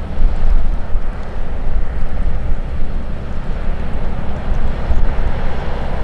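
Fishing boat's inboard diesel engine running under way as the boat comes head-on, a steady low drone, with the rush of water from its bow wave.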